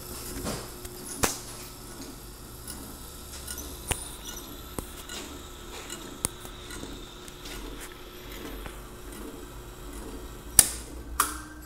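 White Meyer tabletop plastic slitter running with a steady low motor hum, with a few scattered sharp clicks. Two louder sharp clicks near the end, as a hand works the machine's switch box.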